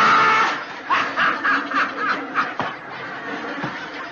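A man laughing hard: a loud high outburst, then a quick string of short laughing bursts that trail off and grow quieter.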